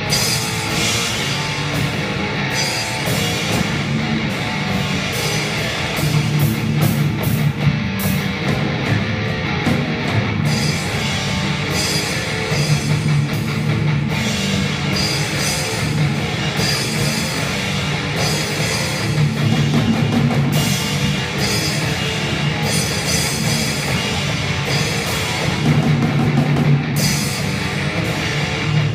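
Live rock instrumental: an electric guitar played through a Marshall amplifier together with a full Pearl drum kit, cymbals and drums driving steadily throughout.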